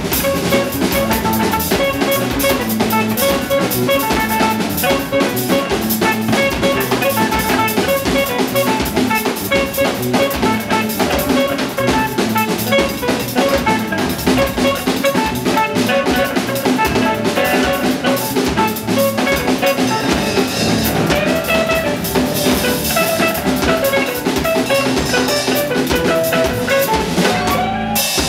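A live band of saxophone, electric guitar, electric bass and drum kit playing loud free jazz, with repeated short notes over busy drumming. The whole band stops together suddenly at the very end.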